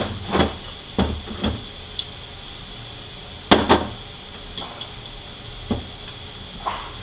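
Metal parts of a 4R75W automatic transmission clunking and knocking as they are handled during teardown, about seven separate knocks with the loudest pair about three and a half seconds in, over a steady high hiss.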